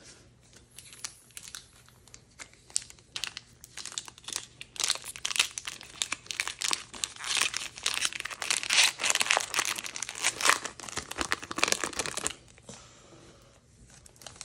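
Foil booster pack wrapper crinkling as it is handled and torn open. The crackle is sparse at first, turns dense for about seven seconds, and dies down near the end.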